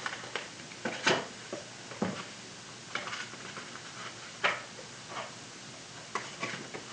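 Paper letter cards being flipped and slid into a tabletop card stand: a series of soft taps and rustles, the sharpest about a second in and just past the middle.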